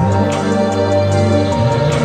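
Background music: slow, sustained chords over a low bass note, with a light ticking beat.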